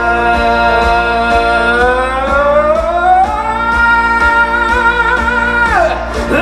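A man singing one long held note over backing music with a steady beat; the note climbs about two seconds in, wavers with vibrato, and slides down near the end.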